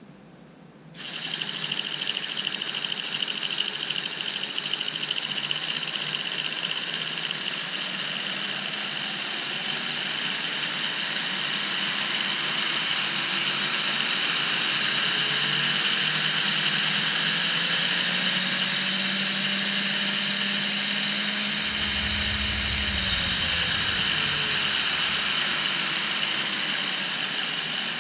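Small electric motor driving a homemade PVC model V6 engine, switched on about a second in and then running steadily with a whirring hum, turning the belt-driven pulleys and fan.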